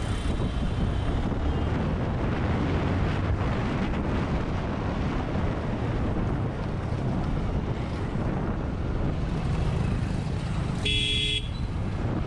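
Motorcycle riding slowly through street traffic: a steady low rumble of engine, road and wind noise on the action camera's microphone. A vehicle horn gives one short toot near the end.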